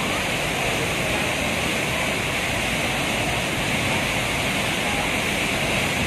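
A large waterfall plunging into a pool: a steady, even rush of falling water.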